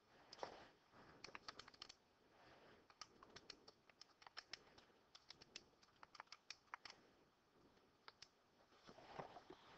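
Faint, irregular runs of quick key clicks as a calculation is keyed in.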